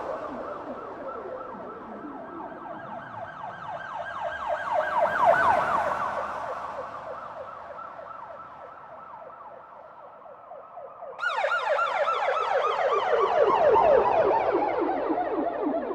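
Police siren on a fast yelp, swelling then fading, its pitch drifting slowly lower. About eleven seconds in, a louder, brighter siren cuts in suddenly with the same rapid yelp.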